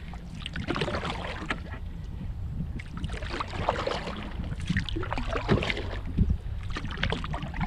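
Irregular water splashes and knocks of a Kevlar canoe on the water, with a few sharper knocks about five to six seconds in, over a steady low rumble of wind on the microphone.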